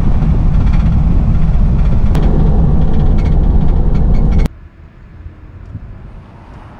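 Road and engine noise of a full-size van driving, heard loud and rumbling from inside the cab. It cuts off sharply about four and a half seconds in, leaving a much quieter outdoor background.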